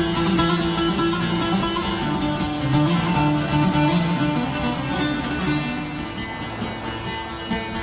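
Instrumental music with plucked strings and steady held notes, a passage without singing.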